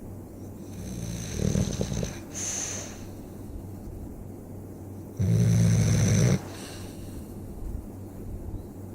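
Snoring: two long snores about four seconds apart, the second one louder.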